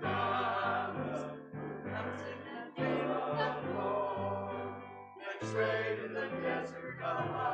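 A small mixed church choir of men's and women's voices singing, in phrases of held notes with short breaks between them.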